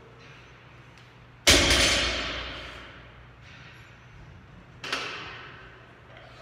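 A heavily loaded barbell with bumper plates set down on the floor: one loud thud with the plates and bar rattling and ringing as it dies away over about a second. A second, lighter knock of the bar follows about three seconds later.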